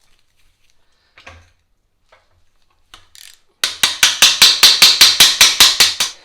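Ratchet wrench clicking rapidly, about seven clicks a second for roughly two and a half seconds starting a little past halfway, as a 14 mm engine mount bolt is turned out. A few faint metal taps come before it.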